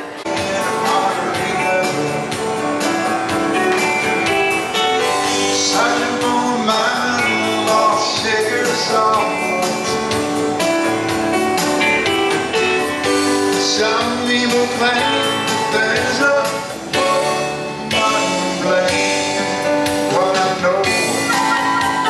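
Live music: a man singing into a microphone while playing a Yamaha CP stage piano, amplified through a PA speaker.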